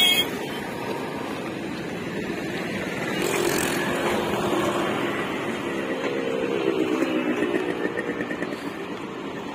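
Steady rushing of water pouring from an open dam sluice gate. Over it, the engines of passing road vehicles rise and fade, once about three seconds in and again around six to seven seconds. There is a short click at the very start.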